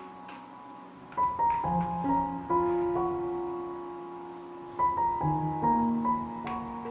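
Background piano music, notes struck one after another and left ringing.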